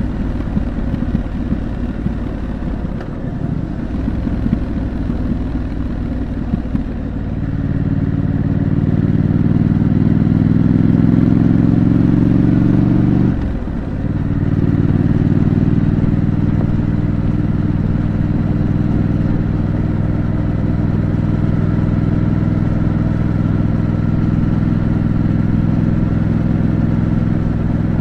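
Triumph Scrambler 900's parallel-twin engine through its stock exhaust while riding: uneven for the first several seconds, then pulling with a slowly rising note, a brief sudden drop about halfway, and a steady note after that.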